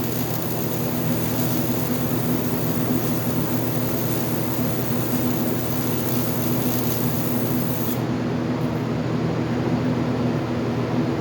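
AC TIG welding arc on aluminium, giving a steady buzzing hum over a constant hiss.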